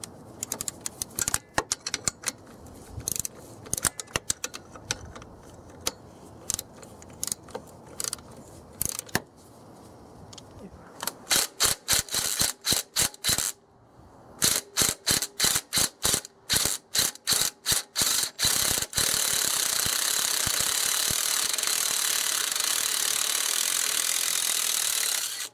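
Socket ratchet clicking in irregular strokes as a 12 mm alternator bolt is worked loose, then a quicker run of clicks. In the last six seconds a Ridgid cordless power tool runs steadily, spinning the bolt out, and stops suddenly at the end.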